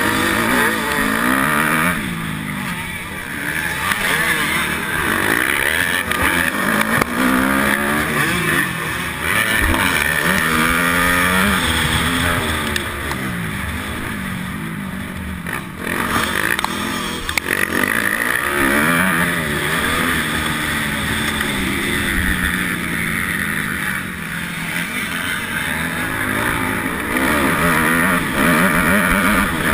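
Honda 250R dirt bike engine heard from on board, revving up and falling back again and again as the rider throttles and shifts through the turns and climbs of a motocross track.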